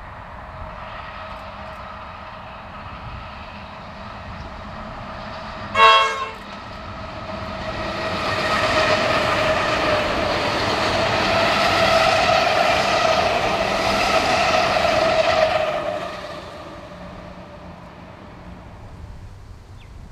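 Melbourne suburban electric multiple-unit train giving one short horn blast about six seconds in, then passing close by on the rails, its noise and a steady whine building and falling away after about sixteen seconds.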